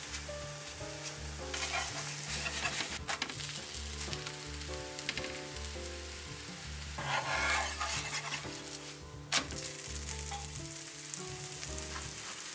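Grated-potato pancake sizzling as it fries in oil in a nonstick frying pan. The sizzling swells for a moment about seven seconds in, and there is one sharp click a little after nine seconds. Light background music plays underneath.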